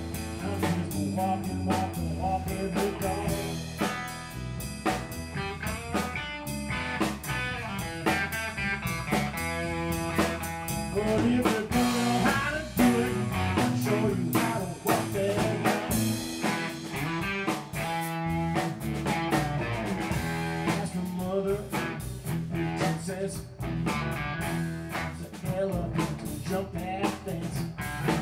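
Small band playing live blues-rock: an electric guitar takes a lead with bent notes over a drum kit, in an instrumental break with no singing.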